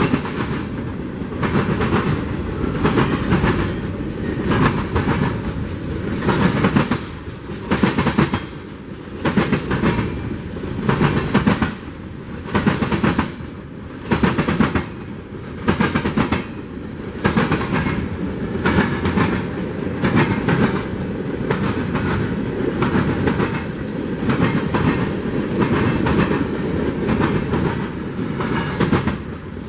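Freight train rolling past close by, its wheels clacking over rail joints in a regular rhythm about once a second, over a steady rumble of the cars.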